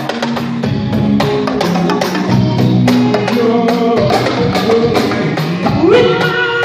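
Mbalax band playing live, led by sabar drums struck rapidly with a stick and a bare hand over bass guitar. About six seconds in, a man's singing voice enters on a rising note.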